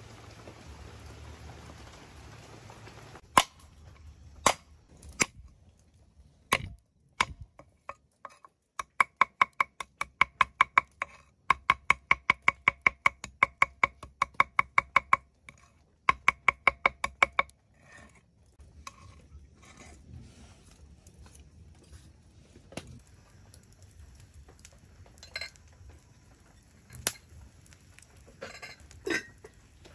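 Knife chopping on a cutting board in two quick runs of about four strokes a second, each stroke with a slight metallic ring, with scattered single knocks before and after. A steady hiss at the very start stops suddenly.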